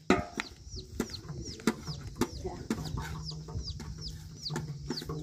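Chickens peeping: short, high, falling peeps, about two a second. Sharp knocks of a knife chopping meat on a metal plate come in between.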